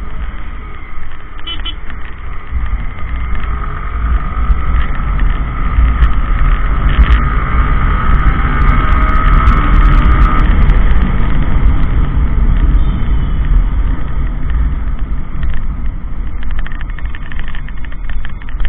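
Yamaha R15 V3's single-cylinder engine running while riding in traffic, with wind rushing over the microphone; the engine note rises and falls, and the sound is loudest around the middle.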